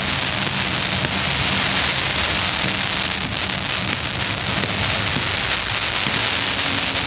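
Fireworks crackling steadily: a dense sizzling crackle like heavy rain, with no big bangs. Low steady music from the show's sound system runs underneath.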